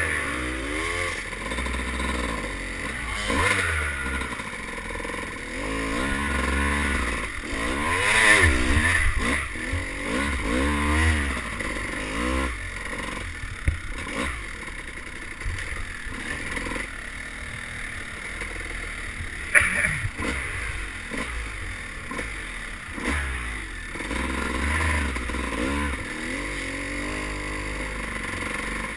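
Dirt bike engine revving up and easing off again and again as it is ridden, with wind rushing over the helmet microphone. A few sharp knocks cut through, the loudest about twenty seconds in.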